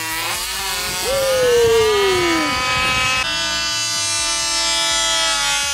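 Small two-stroke engines of 1/5-scale gas RC cars running at high revs on a drag run, one note falling in pitch over about a second and a half. About three seconds in the sound switches abruptly to a steadier high engine note.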